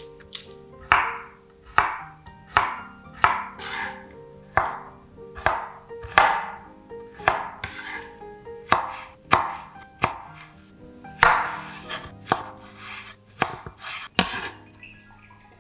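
Chef's knife cutting shallots and tomatoes on a wooden cutting board: a run of sharp knocks, each with a short rasping tail, roughly one every second. Background music runs underneath.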